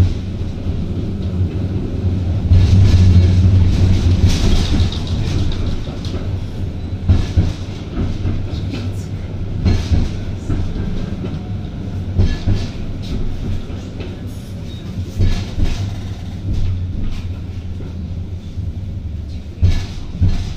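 Konstal 805Na high-floor tram running, heard from inside the car: a steady low drone of the running gear with frequent irregular knocks and rattles from the wheels and car body. It is loudest a few seconds in.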